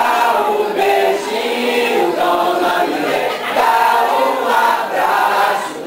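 A group of men and women singing together in chorus, one continuous sung phrase after another.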